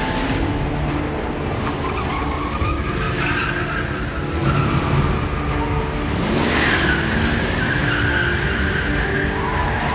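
Car tyres squealing over running engines several times, with a wavering pitch; the longest and loudest squeal comes about six to nine seconds in.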